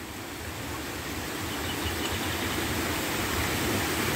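Rushing water of a shallow stream running over rocks in small cascades: a steady rush that grows gradually louder.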